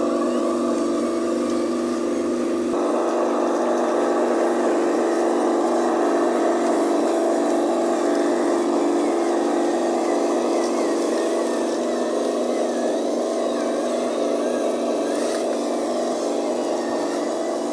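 Radio-controlled model truck running: a steady mechanical drone of motor and drivetrain, changing abruptly about three seconds in.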